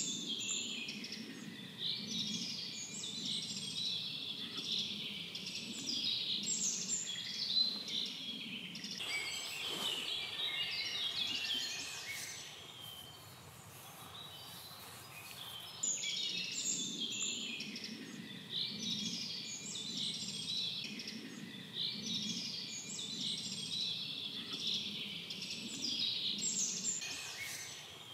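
Chorus of many songbirds singing together, overlapping chirps and trills, thinning briefly about halfway through before building again.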